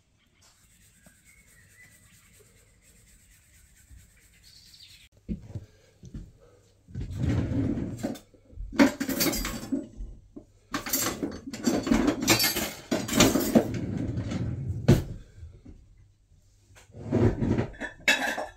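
Kitchen handling noise: dishes and utensils clinking and clattering, faint at first and busy and loud from about seven seconds in.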